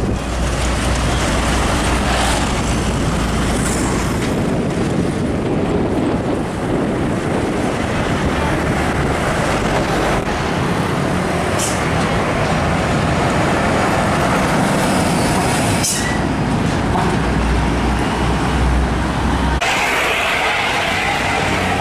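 Highway traffic with heavy diesel cargo trucks passing close by: a steady wash of engine rumble and tyre noise, with the deep engine rumble swelling as trucks go past. The sound changes abruptly near the end.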